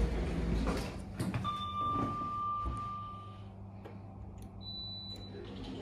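Stannah lift car doors sliding open with a low rumble, then a steady electronic tone lasting about two seconds. Near the end there is a short high beep as the landing call button is pressed, over a low steady hum.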